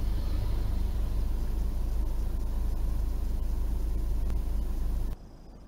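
Steady low in-cabin rumble of a 2011 Ford Focus Mk3 idling while stopped in traffic, picked up by a dash cam. About five seconds in it cuts off abruptly to a much quieter hiss with a faint high steady tone.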